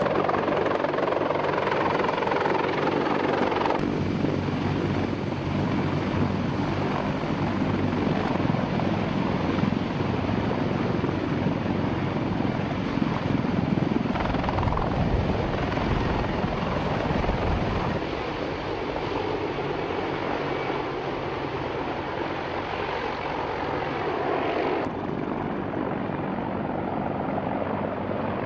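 CH-53E Super Stallion heavy-lift helicopter hovering and flying low with a howitzer slung beneath: a steady, loud din of rotor and turbine engines. Its tone and level shift a few times.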